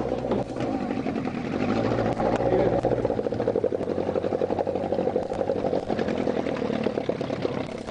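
A boat's motor running steadily, with a fast fluttering pulse from about three seconds in.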